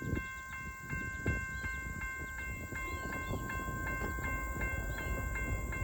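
Grade-crossing warning bell ringing steadily, about two to three strokes a second, over the low rumble of an approaching Norfolk Southern freight train.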